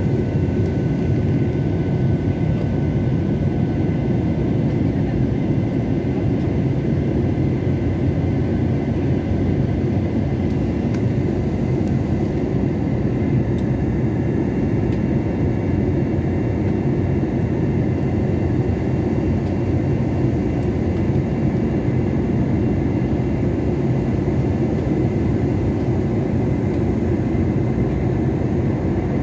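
Airliner cabin noise in flight: the steady low roar of the engines and rushing air, with a faint steady whine above it.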